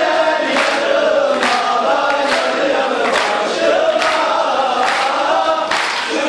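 A group of men chanting together in unison, with a sharp accented beat a little under once a second.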